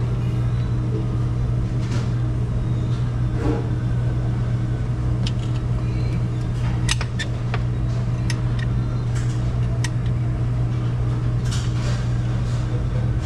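Steady low hum of running refrigeration machinery, with scattered light clicks and taps throughout.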